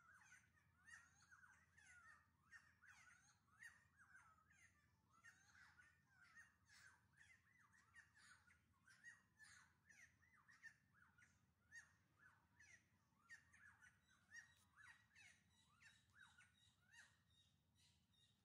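Faint, continual chorus of birds calling in forest, many short calls that bend up and down in pitch, several a second.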